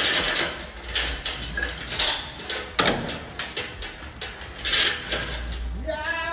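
Heavy steel pulling chain clanking and rattling against the steel deck of a frame-straightening rack as it is laid out and hooked up, in several irregular bursts. Background music comes in near the end.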